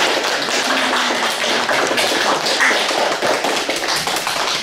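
Audience applauding: a dense, even spread of hand claps.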